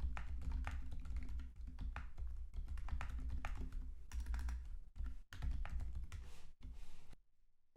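Typing in a quick, steady run on a 60% mechanical keyboard fitted with lubed Boba U4 silent tactile switches, O-ring-damped keycaps and case foam, giving soft key clicks. There are brief pauses, and the typing stops about seven seconds in.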